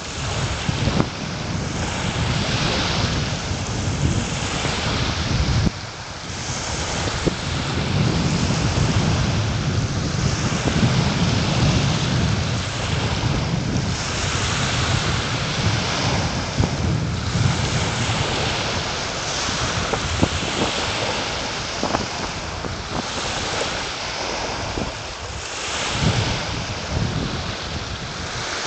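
Small waves breaking and washing up a sandy beach, surging every couple of seconds, with wind on the microphone as a steady low rumble underneath.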